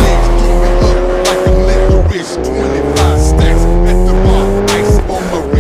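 Ford Fiesta ST's engine pulling hard under acceleration, its pitch climbing steadily. A brief drop about two seconds in marks an upshift, and a second break comes near the end.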